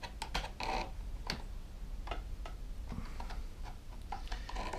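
Irregular light clicks and taps of needle-nose pliers and small parts as a Homelite chainsaw's chain brake linkage is taken apart.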